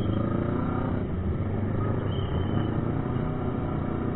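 Motorcycle engine running steadily as the bike rides slowly through traffic, heard from the bike itself, with the low rumble of surrounding road traffic.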